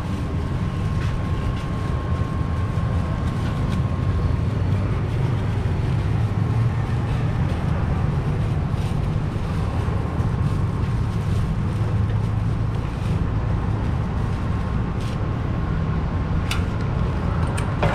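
A steady low rumble, with a few short crinkles of a plastic bag being fitted over a grain grinder's outlet.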